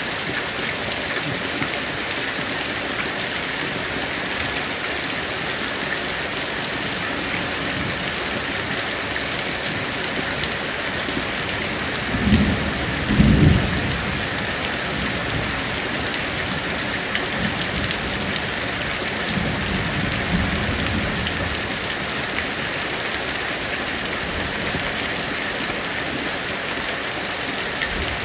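Heavy rain falling steadily, with thunder rumbling about halfway through: two loud peaks close together, then a softer, longer rumble a few seconds later.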